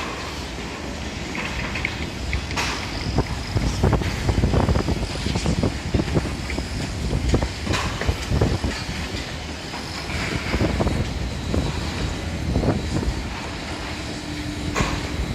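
Construction site noise: a steady low machinery rumble with irregular metallic clanks and knocks, and a brief steady hum near the end.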